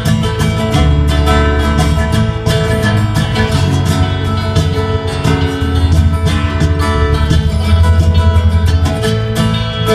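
A live acoustic band plays an instrumental passage with no singing: strummed acoustic guitar, rapid picked banjo notes and electric guitar over held low bass notes.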